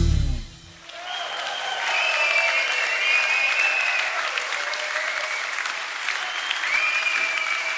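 The live band's final chord dies away in the first half second. Then a concert audience breaks into applause and cheering that carries on steadily.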